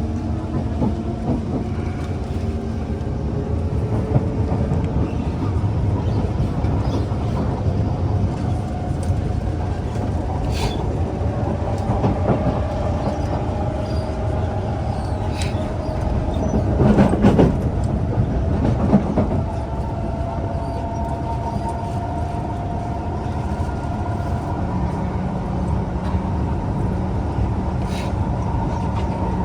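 Kawasaki C151 MRT train running, heard from inside the carriage: the traction motors whine in a rising tone as it picks up speed, over a steady rumble with scattered clicks from the wheels on the track. About two-thirds of the way through there is a short louder patch of rattling.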